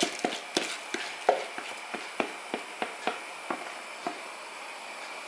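A wooden spoon taps and scrapes against a plastic bowl, knocking the last of the washed basmati rice into the pot. The taps are light and uneven, about two a second, over a faint steady hiss.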